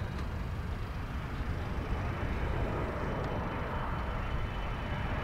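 Boeing 747-400ERF freighter's four turbofan engines on final approach: a steady jet rumble with a faint whine, growing louder in the second half as the aircraft nears.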